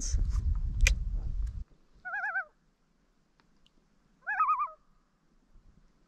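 Common loon giving two short wavering tremolo calls, about two seconds apart, after a low rumble that stops about a second and a half in.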